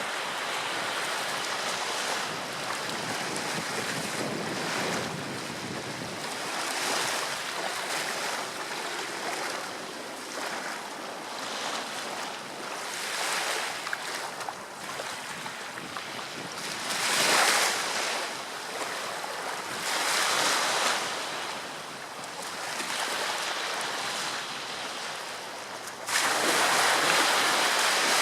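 Ocean surf breaking and washing ashore, swelling and easing every few seconds, with wind buffeting the microphone. Near the end it turns abruptly louder.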